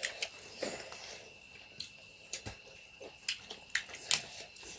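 Close-up eating sounds as snail curry is eaten: irregular wet lip smacks and chewing clicks, a few every second.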